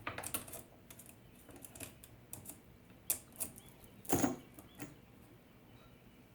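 Scattered light clicks and taps of a screwdriver and metal parts on a chainsaw as the chain-tensioning screw is worked, with one louder knock about four seconds in; the tensioner is not taking up the chain slack.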